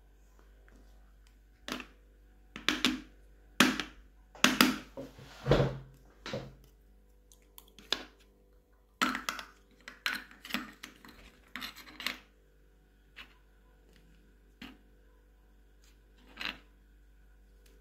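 Hands handling small plastic slime tubs and their lids: irregular clicks, taps and rustles, busiest in the first two thirds, with one low thud about five seconds in.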